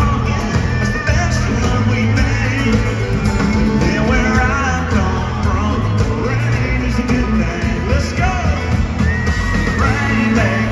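Live country band playing in an arena, with electric guitars and singing over a full, loud mix that echoes through the hall.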